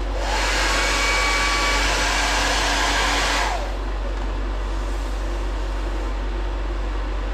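Corded heat gun blowing hot air for about three seconds to dry a colour-match swatch, then switched off and winding down with a falling whine. A steady fan hum runs underneath.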